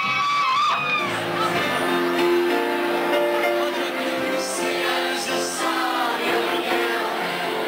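A girl's voice holding a sung note into a microphone, ending about a second in, followed by music with held keyboard-like chords.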